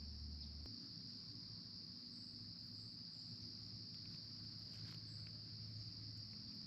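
Faint, steady chorus of insects such as crickets, one continuous high-pitched trill without a break.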